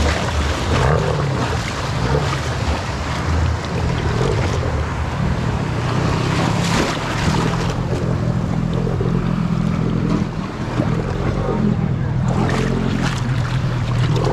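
Small boat's outboard motor running steadily, mixed with waves washing and wind buffeting the microphone.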